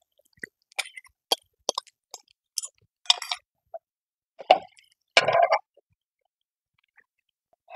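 Spatula scraping and tapping against a nonstick pan while the cook loosens and flips a thin egg-and-masa pancake: a series of short clicks and scrapes, the longest and loudest about five seconds in.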